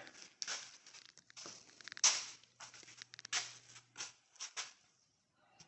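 Handling noise: a series of irregular short rustles, scrapes and light knocks, with a faint steady low hum through the middle.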